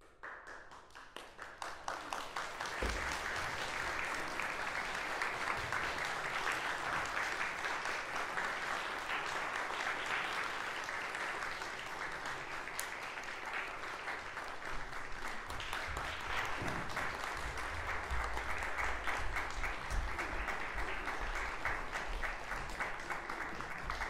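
Audience applause that starts abruptly, swells over the first couple of seconds, then holds steady.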